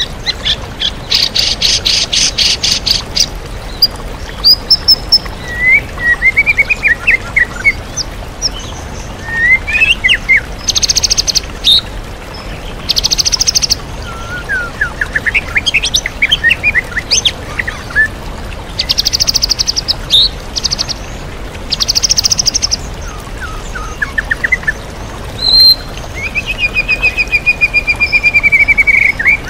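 White-rumped shama singing a varied song of fast, high rattling trills and short warbled phrases that mimic other birds, over the steady rush of a waterfall.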